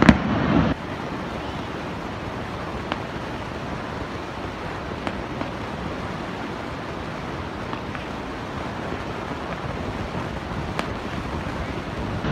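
Steady rushing noise with a few faint, distant fireworks pops spaced several seconds apart.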